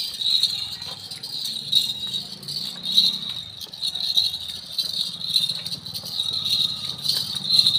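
Small bells jingling continuously with an uneven pulse, as on a cow being led at a walk.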